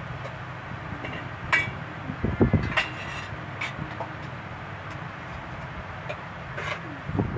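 Hands washing whole raw chickens in a metal basin of water: splashing and sloshing, with a few sharp knocks and clinks against the basin, the loudest about two and a half seconds in.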